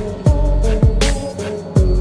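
Background music with a beat of deep bass-drum hits that drop in pitch.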